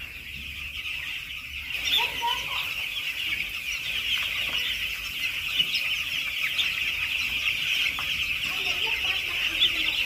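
A large flock of broiler chicks peeping continuously, a dense high chorus of many overlapping chirps that grows louder about two seconds in.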